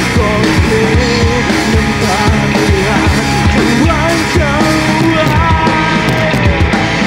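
Live rock band playing: electric guitar, bass guitar and drums with a singer's vocals over a steady drum beat.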